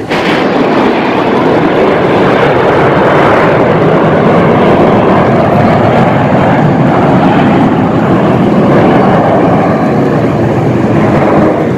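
Loud, steady roar of a formation of jet aircraft flying past low overhead, coming in suddenly at the start.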